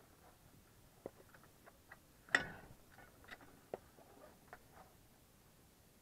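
A few light knocks and clicks as a pike is dispatched with a wooden club and handled on the floor, the loudest knock a little over two seconds in.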